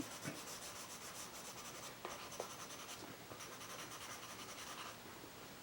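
Faint scratching of a Stabilo CarboThello pastel pencil stroking across vellum-surface mixed-media paper in quick, repeated strokes, with two light ticks about two seconds in.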